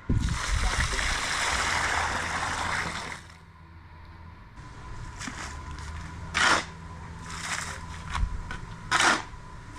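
Water pouring steadily for about three seconds, then stopping suddenly, followed by a few short splashing sounds.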